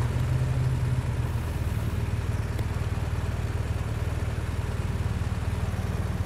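Police motorcycle engine running steadily, heard close up from the bike itself, its note easing slightly about a second in.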